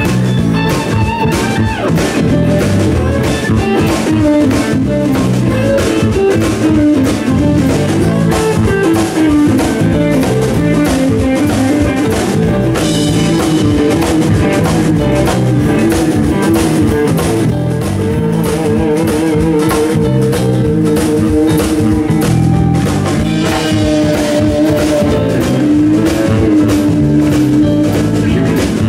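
A live rock band playing with no singing: an electric guitar carries a lead line of quick picked notes over a drum kit.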